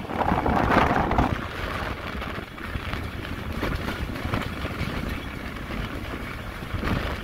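Moving passenger train heard from a phone held out of a carriage window: steady wheel-and-rail running noise with wind rushing over the microphone, louder for about the first second.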